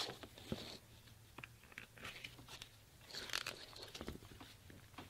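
Faint handling sounds of leather: a leather belt blank being worked through a leather knife sheath's belt loops, with soft rubbing, light taps and clicks, and two short scraping rustles, about half a second in and about three seconds in.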